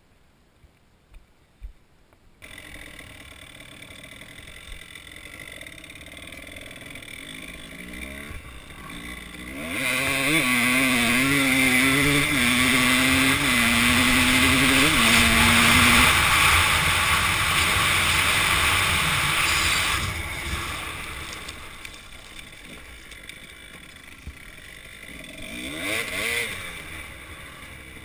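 Kawasaki KDX200 two-stroke single-cylinder dirt bike engine, heard from a helmet-mounted camera. It starts after about two seconds of near silence and runs at a low, steady level. About ten seconds in it revs and pulls away loudly, its pitch rising and falling through about six seconds of throttle changes, and the loud stretch lasts until about twenty seconds in. It then eases back to a quieter run, with one short rev shortly before the end.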